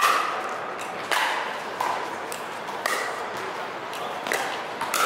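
Pickleball paddles striking a hard plastic pickleball during a rally: sharp pops about once a second, each with a short ring under the roof.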